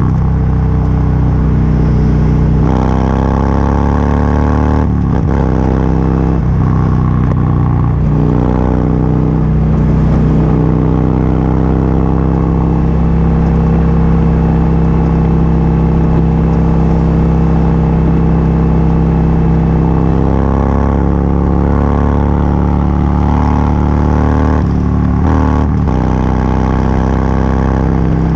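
Motorcycle engine running steadily at highway cruising speed, its pitch shifting a few times in the first eight seconds and again briefly near the end.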